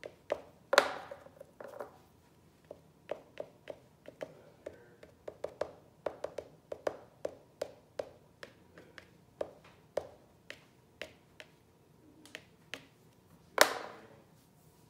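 A string of light, irregular taps and clicks, two or three a second, with two much louder knocks that ring on briefly, one about a second in and one near the end.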